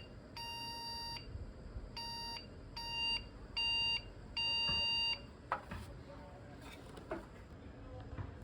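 Motherboard beep code from a Lenovo Legion T5 gaming PC: a single-pitched electronic beep repeating in a pattern of three short beeps and one long one, the code for a memory (RAM) error at boot. A few faint clicks follow near the end.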